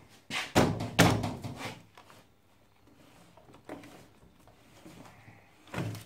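A few sharp metallic knocks and clunks in the first two seconds, then a single thump near the end: tools and parts being handled while working on a motorcycle's rear wheel and chain.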